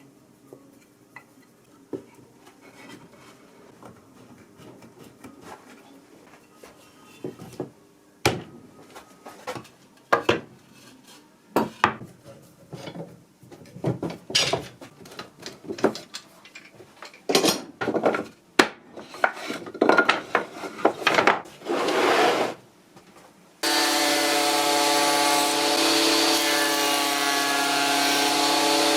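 Wooden pieces being handled, knocked and scraped, a run of irregular knocks and rubs. About 24 seconds in a woodworking power tool's motor comes in and runs at a steady pitch.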